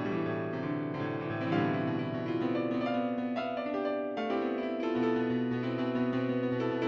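Slow keyboard music: sustained piano chords that change about every second.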